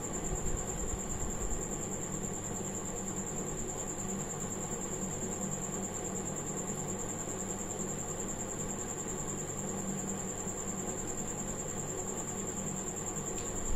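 Steady background hum and hiss with a constant high-pitched whine, and a single brief knock at the very end.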